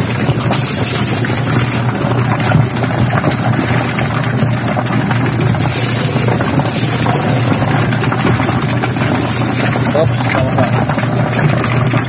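Homemade washing-machine chicken plucker running steadily: the motor hums as it spins the bottom disc, tumbling a wet chicken carcass against the rubber plucking fingers while water is poured in.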